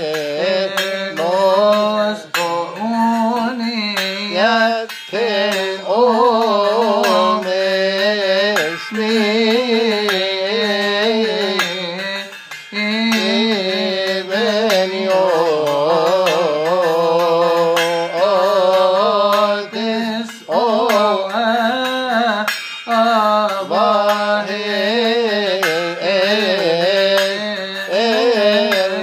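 A man chanting a Coptic Kiahk praise hymn, his voice winding up and down in long ornamented lines, while he keeps time on small hand cymbals whose strikes ring through the singing.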